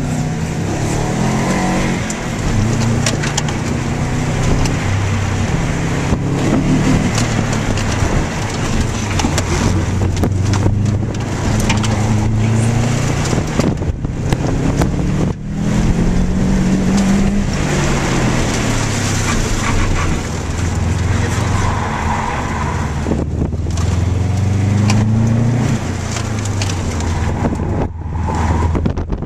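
Subaru's flat-four engine heard from inside the cabin during an autocross run. It revs up and eases off again and again, its pitch rising and falling as the car accelerates and slows through the course.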